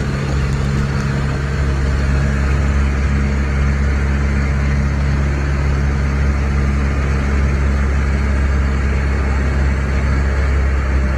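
Engine of a motorized outrigger boat (bangka) running steadily under way, a low drone heard from on board, with a rush of wind and water over it.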